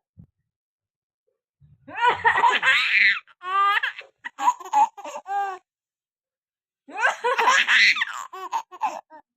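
A small child laughing in bursts of short, repeated giggles, set off by his mother's coughing. The coughing comes twice, about two seconds in and about seven seconds in, and the laughter follows each time.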